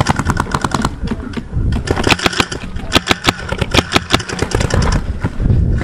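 Empire Axe Pro paintball marker firing rapid strings of shots, about ten a second, in several bursts with short breaks between them.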